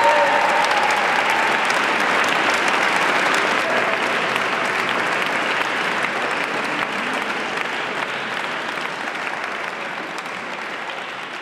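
Large audience applauding, dense steady clapping that slowly fades toward the end.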